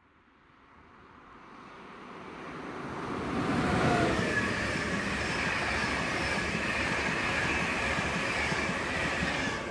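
Electric InterCity 225 express (Mark 4 coaches with a driving van trailer) passing at speed on overhead-wired main line. Wheel and rail noise grows as it approaches, stays loud and steady with a faint whine while the coaches pass close by, then drops off near the end.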